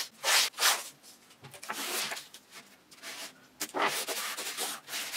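Strips of blue painter's tape being laid and rubbed down by hand onto a wooden board: a couple of quick brushing strokes near the start, then a longer spell of rubbing toward the end.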